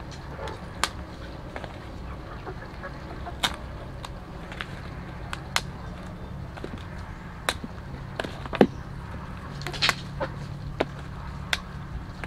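Irregular sharp snaps and clicks of ripe pineapple pieces being broken apart by hand and dropped onto a pile, over a steady low hum.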